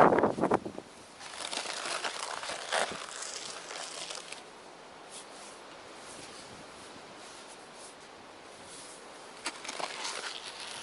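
Snow crunching and scraping in spurts, with a loud burst at the very start, a quieter stretch in the middle and more crunching near the end.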